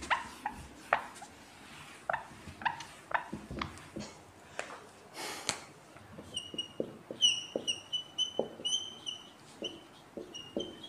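A whiteboard is wiped clean with a series of short rubbing strokes and light knocks. About six seconds in, a whiteboard marker starts writing, squeaking in short, high-pitched chirps with each stroke.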